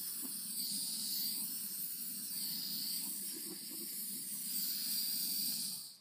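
Handheld torch flame hissing steadily as it is passed over wet acrylic paint to bring up lacing and cells, then cutting off suddenly near the end.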